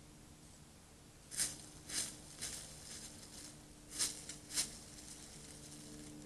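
White-tailed buck's hooves stepping in dry fallen leaves: five short, irregular crunching rustles over a faint steady hum.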